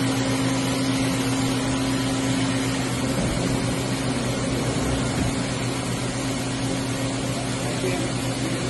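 Hartford PRW-5340 CNC bridge-type machining center running, a steady machine hum with a constant low tone and a higher tone above it.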